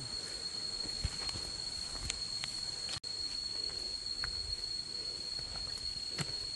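Steady high-pitched insect chorus with a hiss above it, with a few faint clicks from walking on the trail scattered through it.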